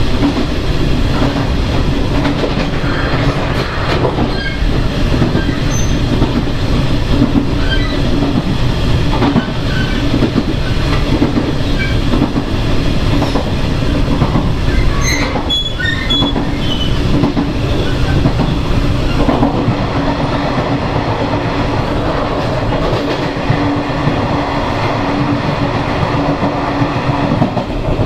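Taiwan Railways EMU300 electric multiple unit running at speed, heard from the vestibule. A steady rumble of wheels on rail carries a constant low hum, with a few brief high squeaks about halfway through.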